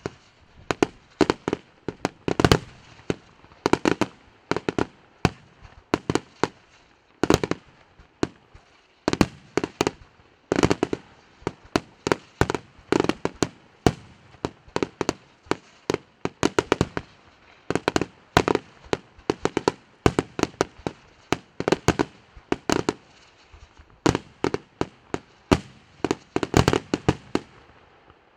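Aerial fireworks bursting in rapid volleys, many sharp bangs a second, in clusters with short gaps, through the whole stretch until the bangs stop near the end.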